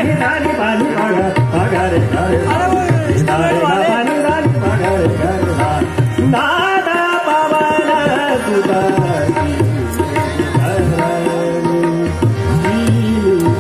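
Hindustani classical vocal music in raag Hamsadhwani: a male voice sings fast, winding melodic runs, accompanied by tabla and harmonium. The tabla keeps up a steady stroke pattern under the singing.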